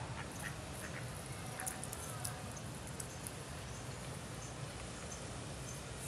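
Mallard ducks giving several short quacks in the first half, over steady background noise.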